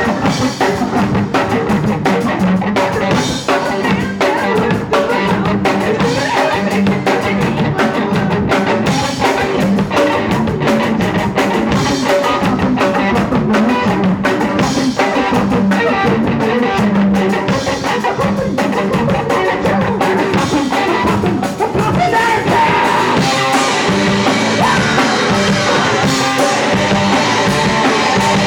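Punk rock band playing live, with the drum kit up front and dense, loud band sound throughout; the music gets brighter and a little louder about three-quarters of the way through.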